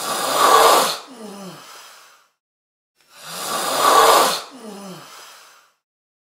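A person snoring loudly: two harsh, rasping snores about three seconds apart, each trailing off with a falling tone.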